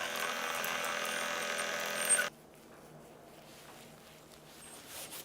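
Small electric motor running with a steady whir, cutting off abruptly a little over two seconds in.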